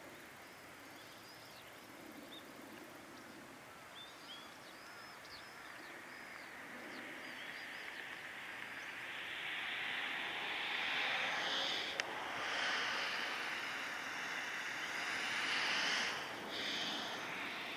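Rolls-Royce Trent 1000 turbofans of a Boeing 787-9 climbing out after takeoff: a jet rumble that swells over the second half as the aircraft passes. Small birds chirp in the first half, and there is one sharp click about two-thirds of the way in.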